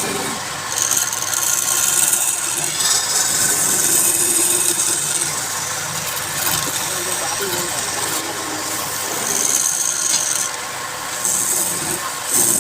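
Wood spinning on a lathe with a tool held against it, giving a steady rasping hiss that drops away briefly and comes back a few times.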